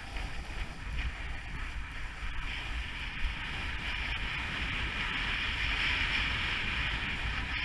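Wind buffeting an action camera's microphone during a fast ride down powder snow, over a steady hiss of snow rushing under the rider. The hiss grows a little louder about halfway through.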